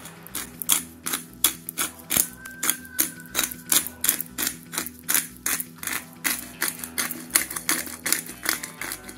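Pepper mill being ground: rapid, uneven clicking, about five clicks a second, over steady background music.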